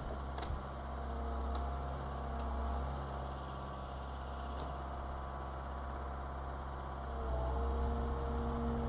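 Excavator's diesel engine running with a steady drone, with scattered cracks and crunches from the building being torn apart. The engine note grows stronger about seven seconds in.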